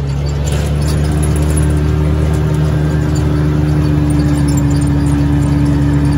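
ATV engine running at a steady speed with an even drone that holds one pitch, as the machine drives along a dirt road.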